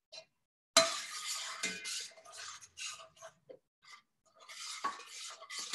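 A metal spoon scraping and clinking against a saucepan in a string of short, irregular strokes, as flour is stirred into melted butter to start a roux for the sauce.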